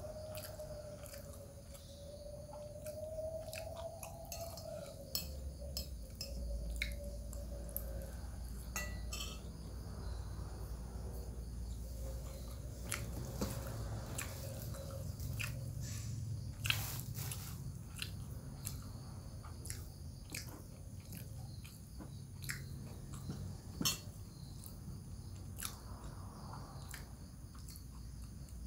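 A person chewing and eating close to the microphone, with many short sharp clicks and two louder clicks about two thirds of the way through. A faint wavering tone runs under the first third.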